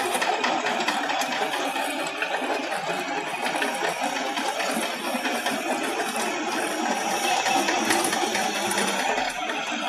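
A John Deere tractor's engine running under load as its PTO-driven rotary wheel trencher cuts a trench through dry, stony soil. It is a steady, dense mechanical rattle, peppered with many small ticks from thrown soil and stones.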